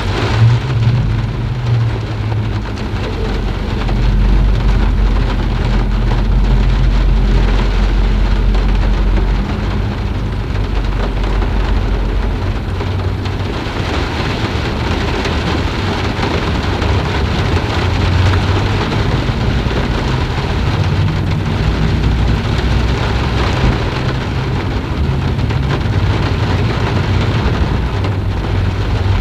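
Steady rain falling, with a long low rumble from about four seconds in until about twelve seconds.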